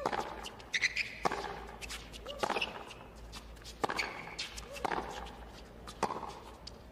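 A tennis rally on a hard court: six racquet strikes on the ball, about a second and a quarter apart, with shoe squeaks on the court between shots.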